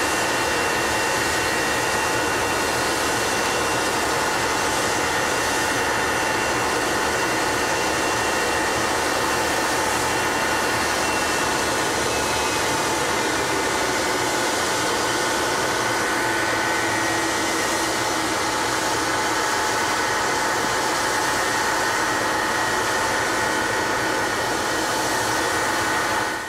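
Diesel-electric freight locomotives creeping to a stop and standing with engines running, a steady machine drone with a whooshing hiss from the cooling fans.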